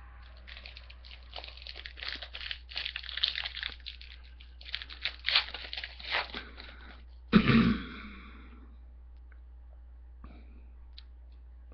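Crinkling and rustling of a hockey card pack's wrapper being torn open and the cards handled, irregular and full of small crackles. About seven seconds in, a person gives one short, loud cough.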